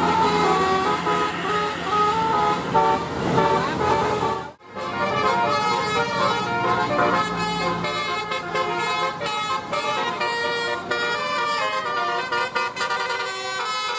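Indonesian bus telolet musical horn playing a tune of stepped notes over the bus engine's steady running. About four and a half seconds in the sound cuts off for a moment, then a second horn tune with faster-changing notes follows.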